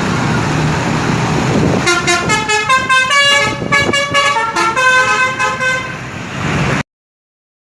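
Tour bus's telolet basuri musical horn playing a quick tune of stepped notes over the bus engine's running rumble, starting about two seconds in. The sound cuts off abruptly near the end.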